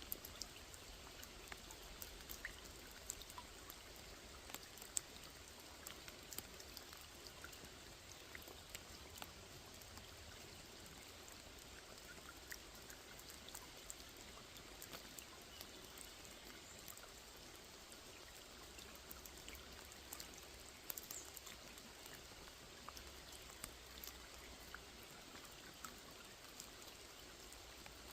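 Rain falling on a small lake: a soft, steady hiss of rain on the water, with many separate drops ticking and splashing at random.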